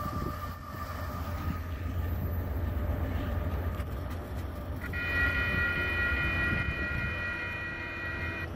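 Union Pacific freight train rumbling as it moves away. About five seconds in, a steady high sound of several pitches at once starts abruptly and holds until just before the end.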